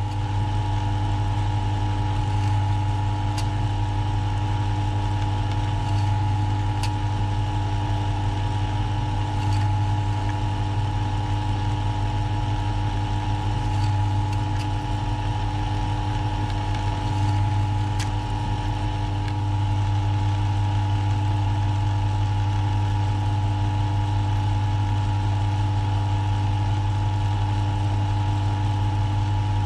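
Milling machine running steadily, its spindle drilling into an aluminium block, with a low hum and a few faint ticks.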